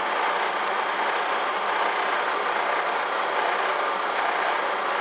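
Heavy truck's diesel engine idling steadily, heard from inside the cab, as the air compressor builds brake air pressure past 90 psi.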